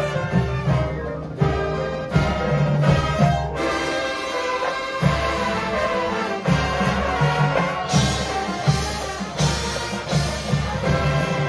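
Marching band playing live: brass chords held over drumline and front-ensemble percussion, with low drum strokes coming again and again.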